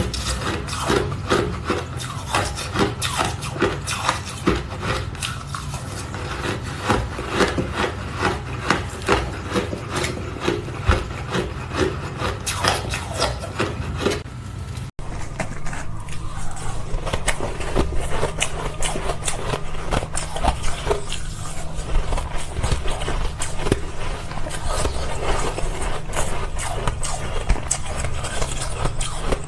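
Ice being crunched and scraped, with dense, irregular crunches throughout. The texture changes about halfway through.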